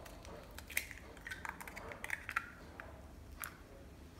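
A chicken egg being cracked open over a glass mixing bowl: a few faint, short taps and clicks of shell, spread over a few seconds, as the egg is broken and emptied into the bowl.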